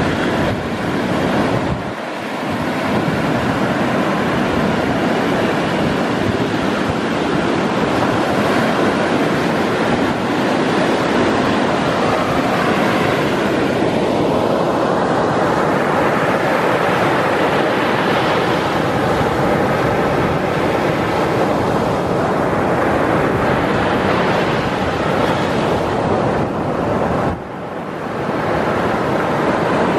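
Ocean surf breaking and washing up a sandy beach: a continuous rush of waves that drops briefly about two seconds in and again near the end.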